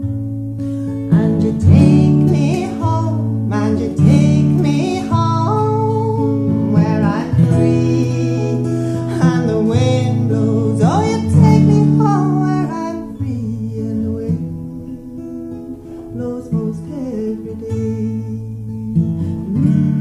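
An acoustic guitar played with a woman singing over it; about two-thirds of the way through the singing stops and the guitar carries on alone, quieter.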